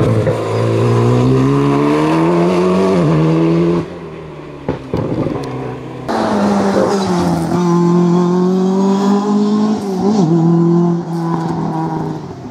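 Rally car engine accelerating hard, its pitch climbing through the gears, cut off abruptly about four seconds in. After a quieter couple of seconds another rally car is heard accelerating, with a gear change about ten seconds in, fading toward the end.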